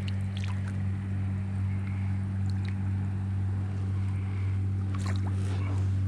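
Small boat motor on an inflatable boat running steadily at one even pitch, a constant low hum, with a few faint clicks over it.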